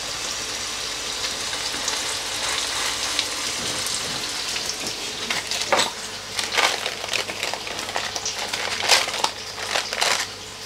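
Minced mutton kebab patties shallow-frying in hot oil in a pan: a steady sizzle, with sharper crackles and spits from about halfway through.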